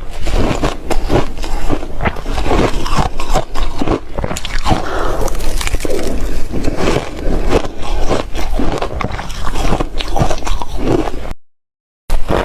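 Soft reshaved ice being bitten and chewed close to the microphone: dense, rapid crunching, broken by a brief dead-silent gap about a second before the end.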